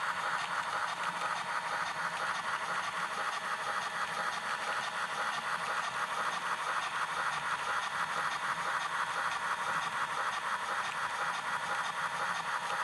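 Model train running on its track, a steady fast clicking rattle.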